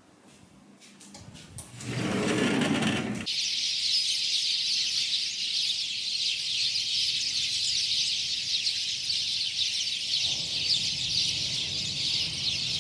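Dense, steady chorus of many small birds chirping together in palm trees, starting abruptly about three seconds in. Just before it there is a short rushing noise.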